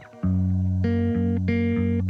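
Background music: held notes over a steady bass line, changing in a regular rhythm, with a brief dip in level at the very start.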